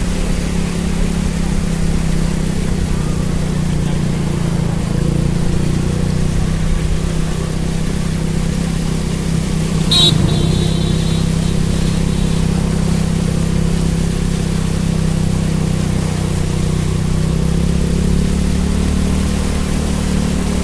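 Motorcycle engine running steadily at low speed through flood water. About halfway through there is a sharp click and a short high ringing tone.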